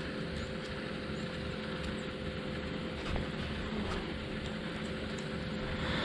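Steady background hiss with a faint constant hum and no distinct event.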